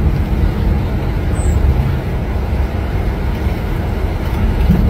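Steady low rumble of a coach bus's engine and road noise, heard from inside the passenger cabin.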